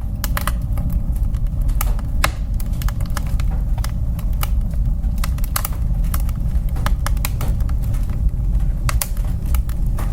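Wood fire burning in a woodstove: a steady low rumble of flames with frequent, irregular sharp crackles and pops from the burning wood.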